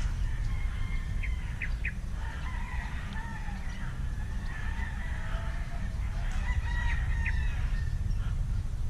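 A rooster crowing, twice, over a steady low rumble.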